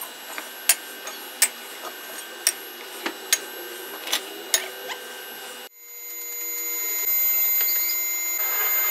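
Sharp knocks at irregular intervals, about eight in five seconds, over a steady mechanical hum. After a cut, a steady rushing noise from a blazing melting furnace swells and then holds.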